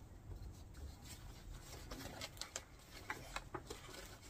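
Faint rustling and light crinkles of paper being handled: a card moved aside and tissue paper in a cardboard box taken hold of, with a cluster of small crinkles in the second half.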